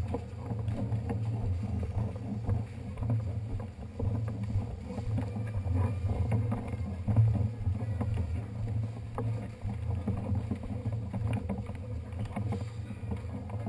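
Low, muffled rumble with scattered knocks and clicks from a bicycle being walked and carried, picked up through a camera mounted on its handlebar.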